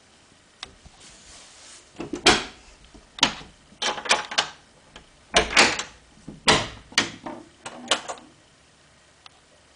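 A door or cupboard door being handled: a cluster of knocks, bumps and rattles from about two to eight seconds in.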